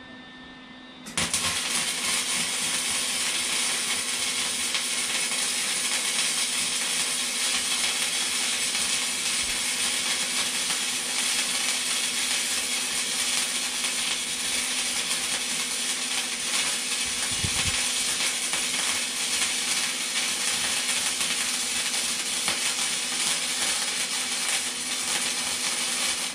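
Electric arc welding on a metal frame: a steady, dense crackle from the arc that starts about a second in, holds unbroken, and cuts off at the end.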